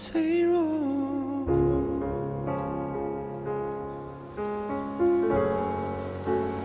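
Mandarin pop ballad: a male voice holds the end of a sung phrase for about a second and a half, then piano plays slow, sustained chords, a new chord about every second.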